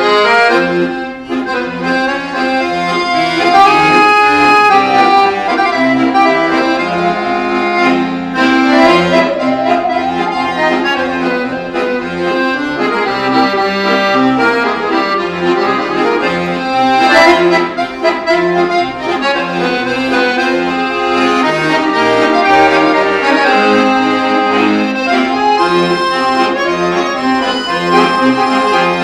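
Two accordions playing a tune together, melody held over a steady rhythmic bass-and-chord accompaniment, with a musical saw joining in.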